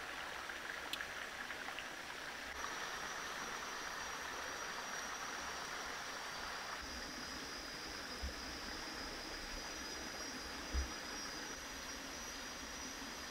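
Steady rushing of a rocky stream. A thin, steady high tone joins it a few seconds in, and two short low thumps come near the end, the second the loudest sound.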